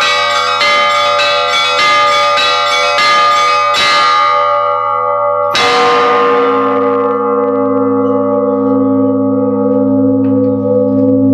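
Bells struck in a quick, even sequence of about two strokes a second, each ringing into the next. After a short pause, one last stroke rings on and fades slowly.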